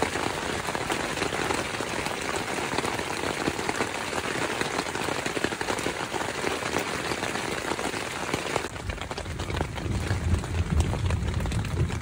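Heavy rain pelting the fly of a backpacking tent, heard from inside as a dense, steady patter of drops. About nine seconds in it turns deeper and heavier.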